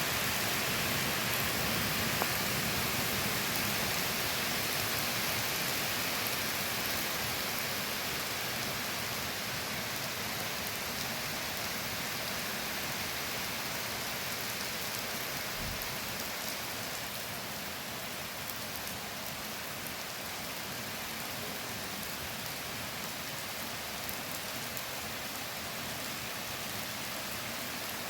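Steady rain falling in a forest, an even hiss with many fine drops pattering, easing off slightly partway through.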